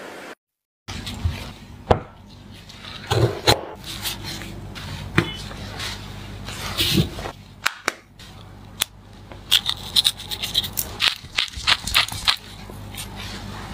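Food-preparation handling sounds: a string of sharp taps, clicks and short scrapes over a low steady hum, with a brief dropout about half a second in.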